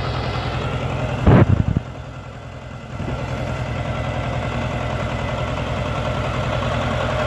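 Old loader-backhoe tractor's engine running steadily with an even low throb as the tractor pulls away. There is a brief loud thump about a second in.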